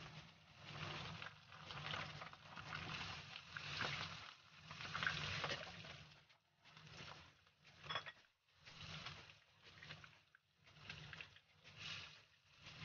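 Oil sizzling and bubbling around a whole pompano frying in a wok, a faint hiss that swells and fades in waves about once a second.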